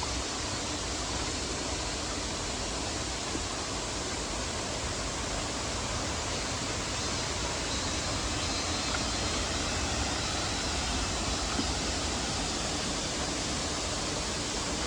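Mok Fa Waterfall's water crashing down in a steady, unbroken rush.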